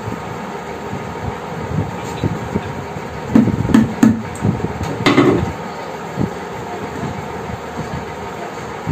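Knocks and clicks of a screw being driven by hand to fix a steel telescopic drawer channel to a wooden drawer side, bunched around the middle, over a steady background hum.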